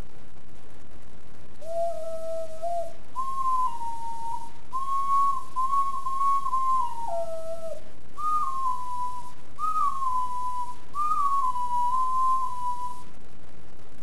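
Extended-range sweet potato ocarina from Songbird Ocarinas playing a slow melody of clear held notes with a breathy edge. It opens on a lower note, climbs to a higher line, drops back briefly, and ends on three phrases that each start a little high and slide down. The playing stops about a second before the end.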